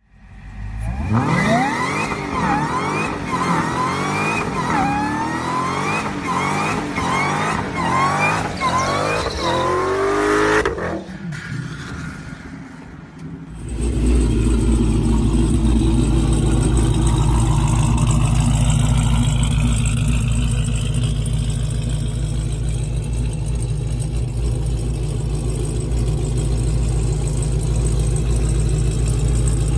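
Dodge Challenger engines during burnouts. For the first ten seconds the engine revs up and drops back over and over in quick succession; after a short lull, an engine holds steady high revs through a long burnout as the rear tyres spin.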